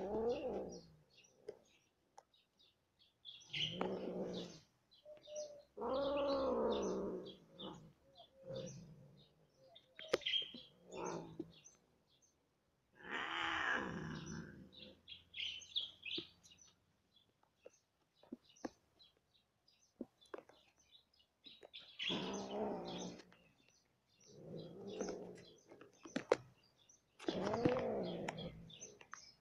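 Cats caterwauling while mating: about eight drawn-out yowls that rise and fall in pitch, each a second or two long, with pauses between them. Birds chirp faintly throughout.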